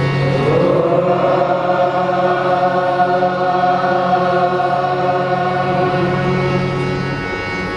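A group of boys chanting together in unison: the chant slides up at the start and is then held as a long steady note. A steady low hum runs beneath it and stops near the end.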